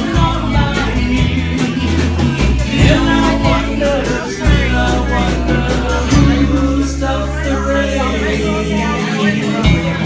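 Live band music: strummed acoustic guitars over bass notes and a drum kit keeping a steady beat, with voices singing.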